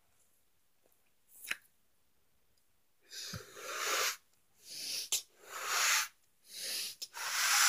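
Someone blowing up a latex balloon by mouth: a series of long breathy puffs, each about a second, starting about three seconds in. A short click falls between two of the breaths.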